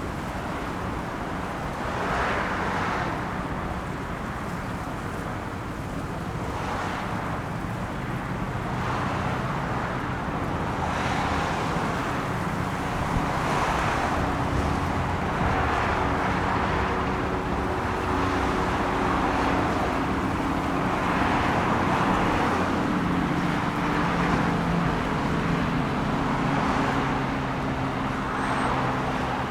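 Road traffic: cars passing one after another, their tyre and engine noise swelling and fading every two to three seconds over a steady low rumble.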